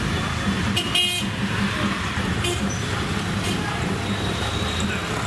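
Street ambience: a steady rumble of traffic and crowd, with a short horn toot about a second in.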